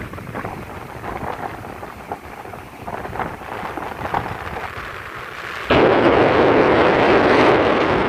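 Strong coastal wind buffeting the microphone, gusty and crackling; a little over five seconds in it suddenly turns much louder as a gust strikes the microphone full on.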